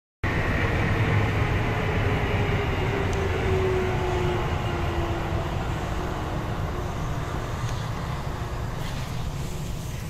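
A vehicle passing: a low rumble with a whine that slowly falls in pitch, fading gradually toward the end.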